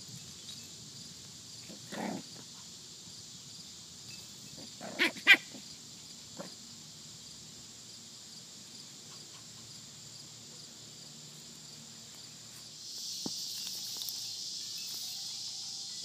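Cicadas droning steadily in a high buzz, which swells louder about thirteen seconds in. Over it, puppies give a short bark about two seconds in and two sharp yips a few seconds later.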